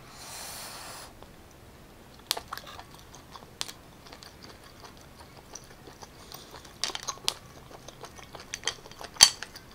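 Close-up eating sounds of sea snails in butter sauce: a brief sucking noise in the first second, then soft chewing with scattered sharp clicks of snail shells and a toothpick against the plate. The loudest click comes near the end.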